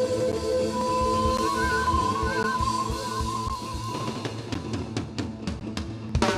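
Live band with a quena, an Andean wooden end-blown flute, holding long ornamented notes over strummed guitar and a drum kit. In the last couple of seconds the drums play a run of accented hits, ending on a loud hit.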